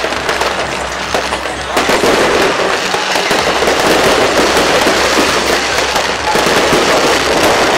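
Aerial fireworks bursting overhead: a dense, continuous run of bangs and crackling, easing a little about a second or two in before building again.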